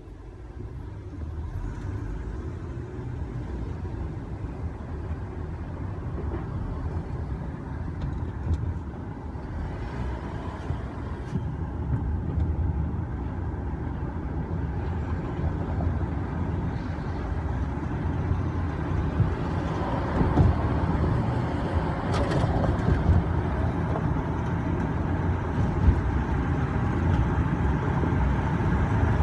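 Car cabin noise from the back seat of a taxi: a steady low rumble of engine and road, growing gradually louder, with a few faint clicks.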